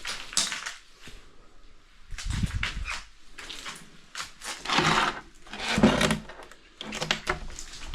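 Footsteps crunching and scraping over debris and broken glass, in a few uneven bursts.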